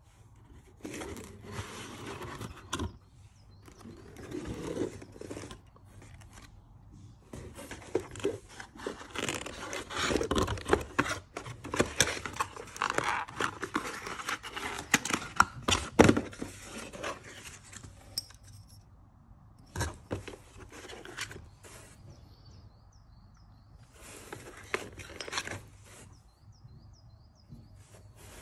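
Cardboard box and its cardboard inserts being opened and handled: scraping and rustling of cardboard in bursts with sharp knocks, busiest through the middle.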